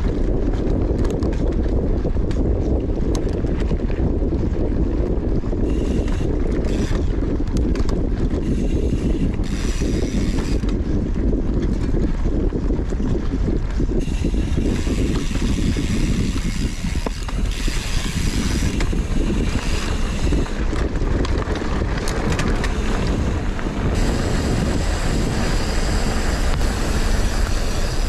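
Mountain bike being ridden over dirt trail: steady wind buffeting on the microphone over the rumble of tyres on dirt, with frequent small clicks and rattles from the bike on rough ground. The sound changes abruptly twice, about halfway and again a few seconds before the end.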